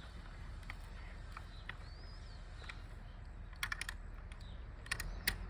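Ratchet wrench being worked on the steering damper bolt through an extension, giving two short bursts of rapid clicks in the second half.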